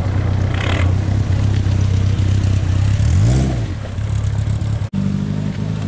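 Car engine running steadily, then revved once about three seconds in: the pitch rises and falls back to idle. Near the end the sound cuts off abruptly, and a different steady engine note follows.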